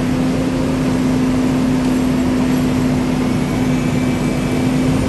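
Heavy utility work truck engine running. Right at the start it steps up to a louder, steady hum and holds there.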